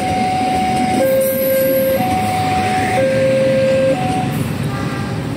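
Two-tone electronic warning alarm alternating between a higher and a lower note about once a second, over the rumble of a passing train. The alarm grows faint near the end.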